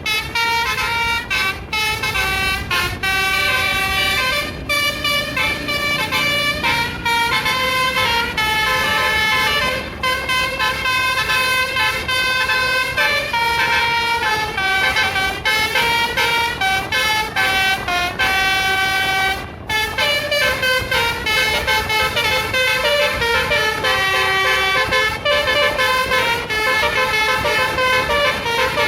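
Tour bus 'telolet basuri' multi-note musical air horn playing a tune of short stepped notes, starting abruptly and with a brief break about twenty seconds in, over the low running noise of the bus.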